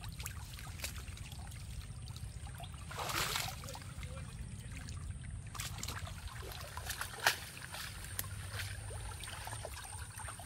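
Pond water splashing and trickling as a bamboo-framed fishing net is handled and its catch picked through, with scattered small clicks. A louder splash comes about three seconds in and a sharp click about seven seconds in.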